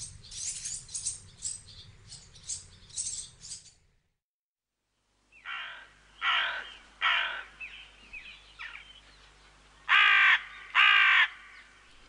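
Faint high twittering of blue tits, then after a short break a carrion crow cawing: a series of harsh, falling caws, the last two, about ten seconds in, the loudest.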